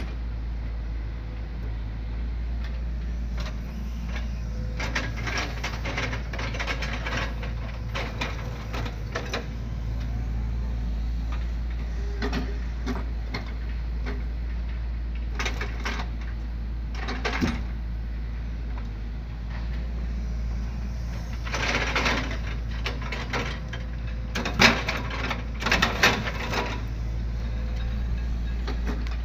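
Hitachi excavator's diesel engine running steadily as its log grapple loads logs onto a truck, with clusters of creaks and knocks from the grapple and the logs. Two sharp knocks come near the end.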